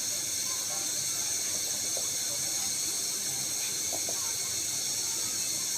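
Steady hiss of steam from a pot of water at a rolling boil, with a sieve set over it as a steamer. Two faint light taps about two and four seconds in.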